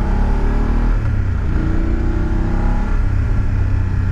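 BMW F850 GS Adventure's parallel-twin engine pulling the bike uphill, its note rising and falling as it accelerates, over a heavy wind rumble on the helmet microphone.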